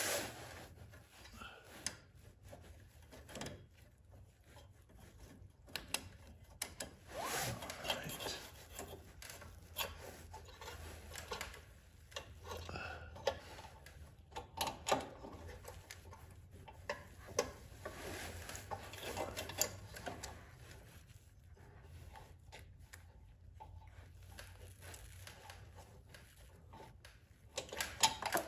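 Scattered small clicks, taps and rubbing as hands handle metal parts, fitting the mounting screws of a snowblower carburetor.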